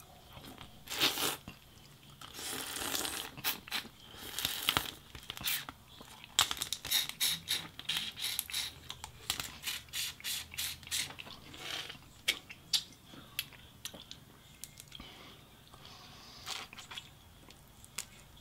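Close-up eating sounds: sucking and slurping at a piece of boiled shellfish and sauce-covered fingers, then a quick run of wet lip smacks and clicks while chewing, thinning out near the end.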